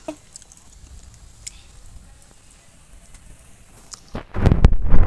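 A few seconds of quiet, then a loud, rumbling gust of breath blown out onto the microphone, lasting about a second.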